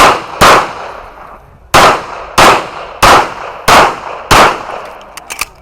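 Handgun shots fired in a practical shooting stage: two shots, a pause of about a second, then five evenly spaced shots roughly two-thirds of a second apart, each with a short echoing tail. A few faint clicks near the end.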